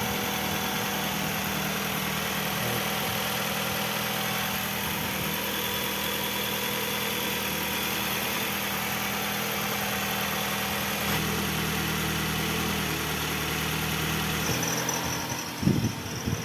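Nissan X-Trail T30's four-cylinder petrol engine idling steadily, just after its first start following a cylinder-head repair and top overhaul. The idle note shifts slightly in the second half.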